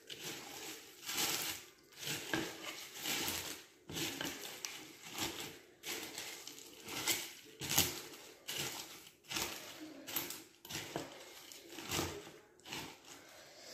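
Silicone spatula stirring cornflakes into melted chocolate and butter in a plastic Tupperware Micro-Cook pitcher, in repeated strokes roughly one a second.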